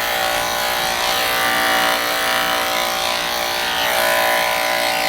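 Electric dog grooming clippers running steadily with an even motor buzz, clipping a poodle's coat short on the chest.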